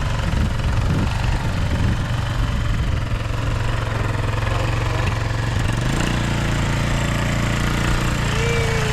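ATV engine running at a steady idle, its pitch stepping up as it is throttled up about six seconds in.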